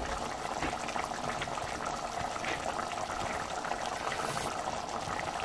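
Mutton masala with water boiling in an open pressure cooker: a steady bubbling with many small irregular pops.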